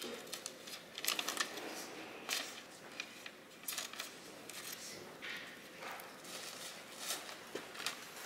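Scissors snipping through sheets of collage paper in a series of irregular cuts, with the paper rustling as it is handled.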